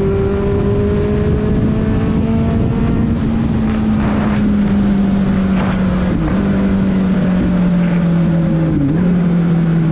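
Kawasaki Z750 inline-four engine running at a steady cruise while riding, with a noisy rush underneath. The engine pitch climbs slowly over the first few seconds, then holds, dipping briefly twice in the second half.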